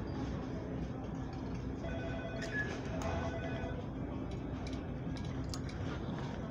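Supermarket background noise: a steady low hum, with a few short electronic tones and sharp clicks coming in from about two seconds in.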